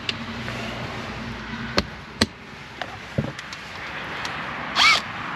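Scattered sharp clicks and knocks of a socket and extension working a 10 mm nut off a car's liftgate trim. A short, loud, pitched chirp comes near the end.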